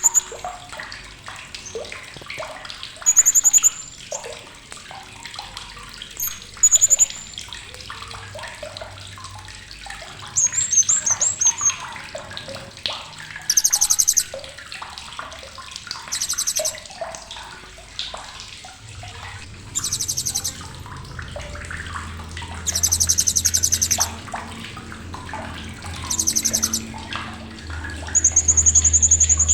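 Blue-crowned hanging parrot (srindit) giving sharp, very high-pitched chattering trills, about ten in all, each half a second to a second and a half long. Softer chirps fill the gaps between them.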